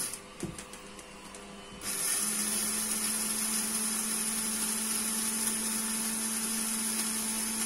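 Electric coffee grinder motor running with a steady whine and hiss. It stops at the start, a single knock comes in the gap, and it starts again about two seconds in.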